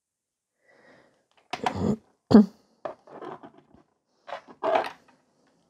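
Handling noises at a nail work table: a few knocks, clicks and rustles from tools and hands, the loudest a sharp knock about two and a half seconds in.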